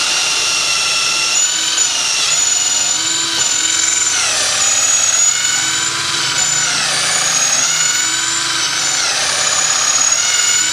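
Xiaomi Mijia Tonfon cordless drill, set to drill mode, boring into a thick block of wood until the bit is buried to its full length. The motor whine runs steadily, and its pitch sags and picks back up several times as the bit bites under load.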